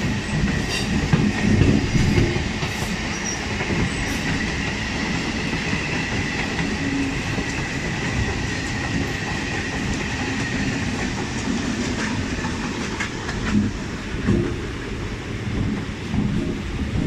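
Indian Railways suburban EMU local train running past close by, its wheels and coaches making steady track noise with low thumps. A high steady whine sits over it and fades out about eleven seconds in.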